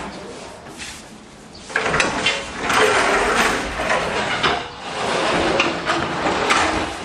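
Irregular mechanical clattering and knocking, louder from about two seconds in.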